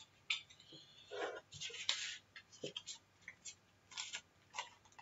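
Stiff game cards being handled and shuffled by hand, with a clear plastic card bag crinkling. The sound is a string of short rustles and light clicks, with a longer rustle about a second and a half in.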